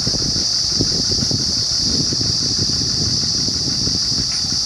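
Truck-mounted borewell drilling rig running: a rough engine and machinery rumble under a steady high-pitched hiss.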